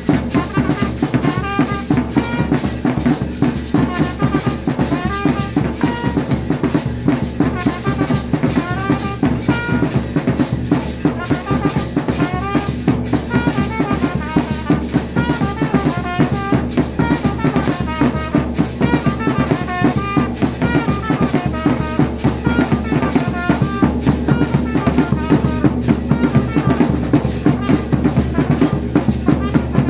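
Drum ensemble of a large double-headed bass drum and smaller double-headed drums beaten in a steady, busy rhythm, with a melody of short high notes running over the drumming.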